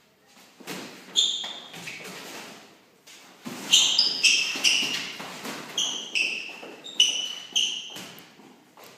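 Boxing sparring footwork: trainers squeaking sharply on the hall floor again and again, mixed with thuds of stepping feet and gloved punches landing.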